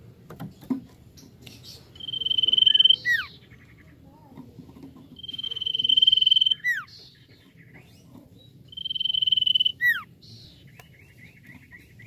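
Iora (cipoh) singing: three long, steady whistled notes, each swelling in loudness for about a second and ending in a sharp downward-slurred note. A short run of fast chattering notes follows near the end, and a few soft clicks come in the first second.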